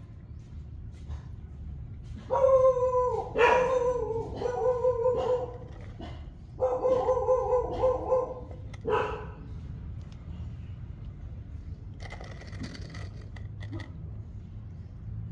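A pet animal crying out in a series of about four or five drawn-out, pitched calls, followed a few seconds later by a brief rustle.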